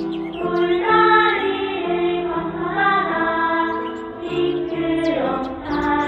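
Children's choir singing a Korean children's song, a steady melody of held notes that moves from phrase to phrase without a break.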